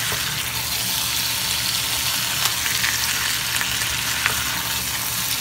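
Chicken pieces with ginger and onion frying in a granite-coated nonstick pan: a steady sizzle, with a few light clicks as the pieces are stirred with a spatula.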